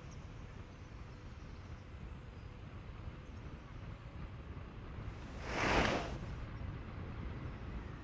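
Steady low rumble of wind and road noise on a moving camera's microphone, with a brief whoosh that swells and fades about five and a half seconds in.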